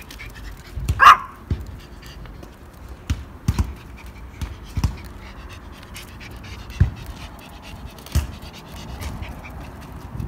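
A dog panting, with one short, sharp call about a second in and several dull thumps spread through.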